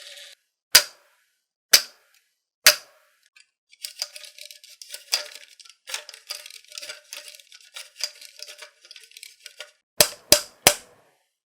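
Marbles clacking down a wooden HABA marble run. There are three sharp clacks about a second apart, then several seconds of quick rattling clatter as marbles roll and bounce along the track, then three rapid clacks near the end.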